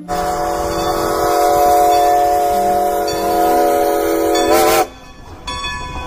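Steam locomotive whistle blowing one long blast with a hiss of steam over a low rumble. The whistle wavers and cuts off about five seconds in, leaving a fainter rumble and tone.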